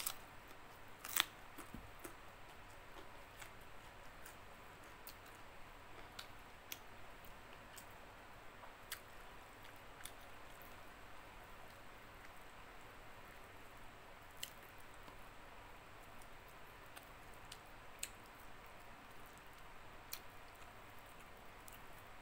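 Faint eating sounds: a sharp crunchy bite about a second in, then scattered small clicks and crackles as fried fish is pulled apart by hand and chewed.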